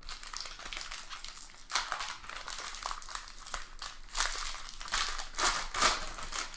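Foil wrapper of a trading card pack crinkling as it is handled and opened, with several louder crinkles about two, four and six seconds in.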